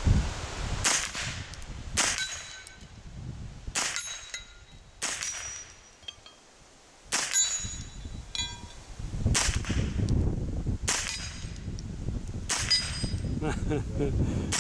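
A string of about eight gunshots fired at an irregular one-to-two-second pace, each hit answered by the ringing clang of a steel target plate.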